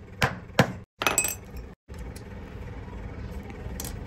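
Hammer striking a screwdriver held on a metal party-popper canister to punch a hole through it: two sharp metallic blows about a third of a second apart near the start, then a few light clinks after a cut.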